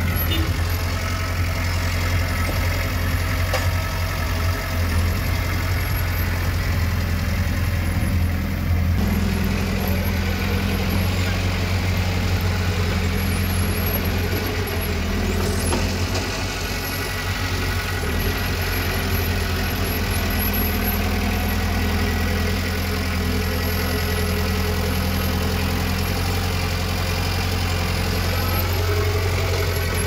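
A construction machine's diesel engine running steadily with a low, even hum, shifting slightly about nine and again about sixteen seconds in.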